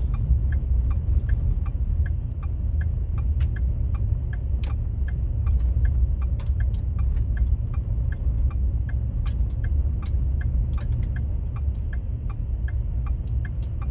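Car turn signal ticking steadily, about two to three ticks a second, over the low rumble of tyres on a gravel road and the engine, heard from inside the cabin; the right blinker is on for a turn ahead. A few sharp clicks stand out now and then.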